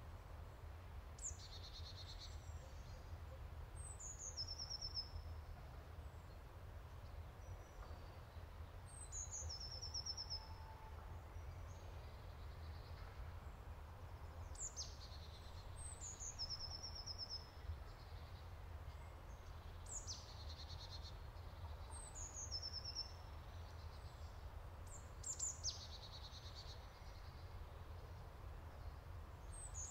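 Songbirds singing in woodland: short high phrases, some falling in steps and some ending in a quick trill, repeated every two to three seconds. A steady low rumble runs underneath.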